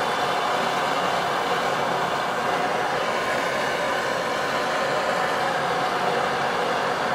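Propane hand torch burning with a steady hiss, its flame heating a copper pipe coupling to soldering temperature for sweating the joint.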